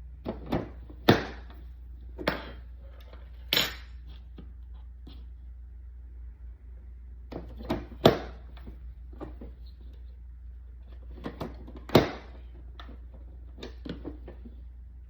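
Irregular sharp plastic knocks and clicks from a push-down vegetable chopper being handled. The loudest come about a second in, around 8 seconds and a few seconds before the end, with lighter clicks between.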